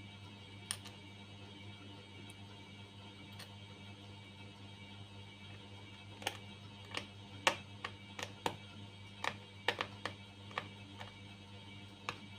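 A series of small, sharp clicks and taps, one early and a quick cluster from about six seconds in, from screwdriver, screw and parts being handled while an M.2 NVMe SSD is fitted into an open laptop, over a steady low hum.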